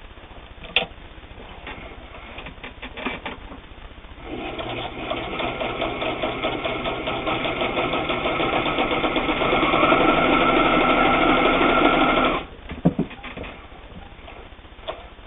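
All-metal Janome New Home Double Duty sewing machine straight-stitching through two layers of denim, with no effort whatsoever. It starts about four seconds in, speeds up and gets louder, runs for about eight seconds and stops suddenly. A few clicks come before it starts and after it stops.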